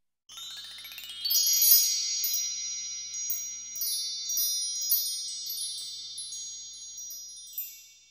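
Chimes ringing: a rising sweep of bright high chime tones, then scattered further strikes that ring on and slowly fade away.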